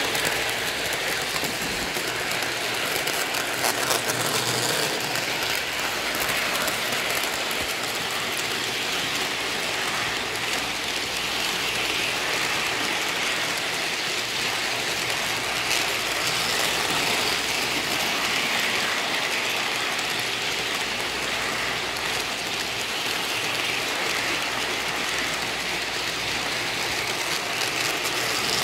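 O gauge model passenger train running steadily past on Lionel track: a continuous mechanical rolling noise of wheels on the rails and the locomotive's motor.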